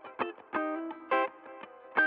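Background music: plucked guitar notes with effects, struck in a quick rhythm.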